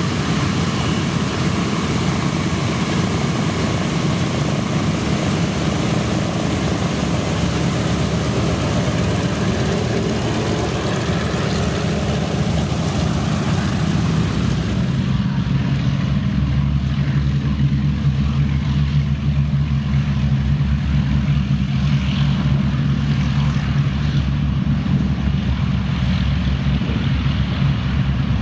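Boeing B-17 Flying Fortress's four Wright R-1820 Cyclone radial engines running as it taxis, a loud, steady low drone. About halfway through, the sound turns duller, the hiss gone and an even low hum left.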